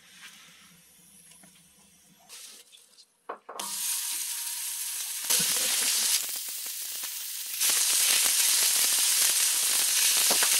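Raw pork belly strips sizzling on a hot round iron griddle heated by a wood fire. The sizzle starts suddenly a little over three seconds in and grows louder in steps as more strips are laid on, about five and eight seconds in. Before it there is only a faint crackle from the burning firewood.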